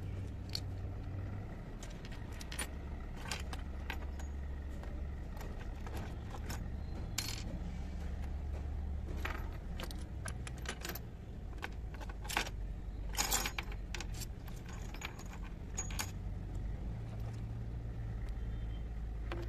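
Tiny ceramic and metal miniature dishes and utensils clinking and tapping as they are picked up and set down, in scattered light clicks with a denser cluster about thirteen seconds in. A steady low hum runs underneath.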